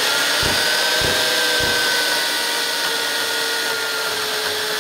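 Skilsaw carpentry chainsaw, a corded electric worm-drive chainsaw, running at full speed as it is pushed straight into a laminated wood beam. Three low knocks come in the first two seconds, and the motor's pitch sags a little as the chain loads up in the cut, which is a lot more taxing when entering perpendicular.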